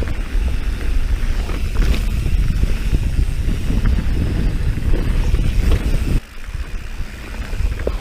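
Wind buffeting the microphone of a camera mounted on a moving mountain bike, mixed with the tyres rolling over a dirt trail and occasional clicks and rattles from the bike. The rumble eases off a little about six seconds in.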